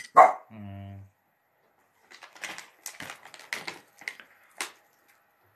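A sharp thump right at the start and a short low hum, then a string of irregular light taps and clicks, like hands handling a phone or nearby objects.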